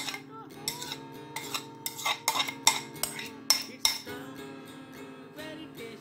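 A spoon clinking and scraping against a steel mixer-grinder jar as paste is scraped into it: a quick run of sharp clinks over the first four seconds, fewer after. Soft background music runs underneath.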